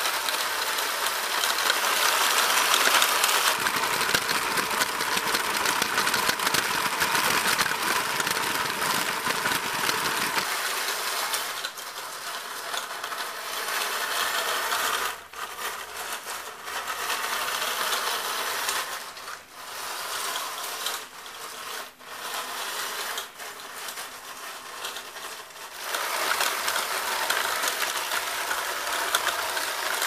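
Small electric drive motors of a home-built RC tracked vehicle whirring as its tracks clatter and crunch over gravel. The sound cuts back and resumes several times in the middle, then runs strongly again near the end.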